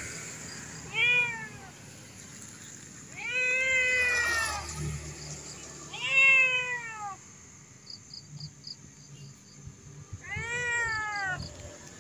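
A cat meows four times, each meow rising and then falling in pitch, with gaps of two to four seconds between them.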